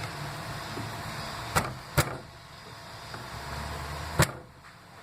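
Three sharp clicks of metal on metal as a car battery's terminal clamp is worked and spread open to free it from the post, the clamp having been overtightened. Two come close together about a second and a half in, the third near the end.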